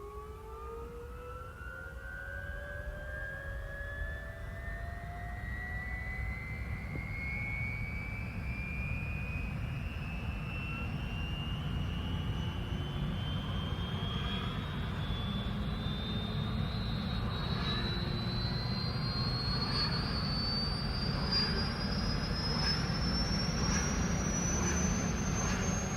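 Helicopter turbine engine starting up: a high whine rising steadily in pitch as it spools up, over a low rumble that grows gradually louder.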